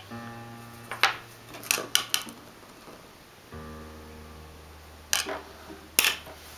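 Background keyboard music of sustained chords, changing every few seconds. Over it come sharp taps and clicks of small wooden kit pieces and a plastic glue cup handled on a wooden tabletop: one about a second in, a quick cluster around two seconds, and two more near the end, the last the loudest.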